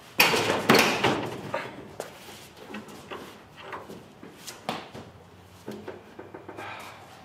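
A series of clunks and knocks, the two loudest within the first second, then lighter clicks and taps.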